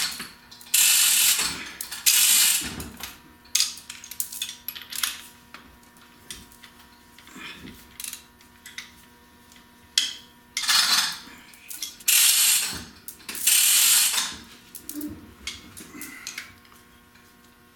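Manual chain hoist being hauled to lift a Jaguar V12 engine out of its bay: the chain rattles through the block with ratchet clicks in several spells, with smaller metallic clicks in the pauses.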